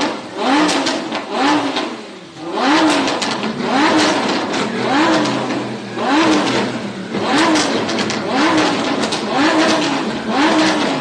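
Performance car engine being revved in short repeated blips, about one a second, each rising in pitch and dropping back.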